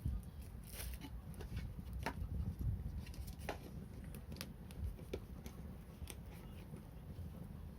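Wood bonfire crackling: irregular sharp pops and snaps over a steady low rumble.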